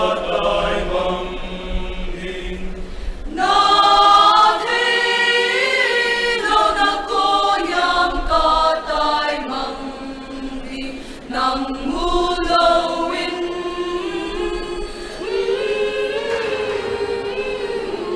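Mixed choir of men's and women's voices singing, with a fuller, louder entry about three and a half seconds in and a short dip in the singing near the middle.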